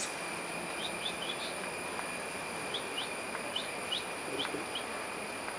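Short, high bird chirps, about ten of them in small clusters of two or three, over a steady high hum and hiss of forest background.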